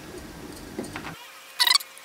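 Hard plastic clicks from the 3D-printed escapement parts being worked: a few faint ticks, then a short loud rattle of clicks about one and a half seconds in.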